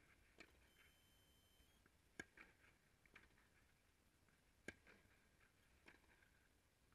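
Tennis ball struck back and forth in a rally on an indoor clay court. Faint, sharp hits: two louder ones about two and a half seconds apart, with softer hits or bounces between them, each echoing briefly. A short high beep sounds about a second in.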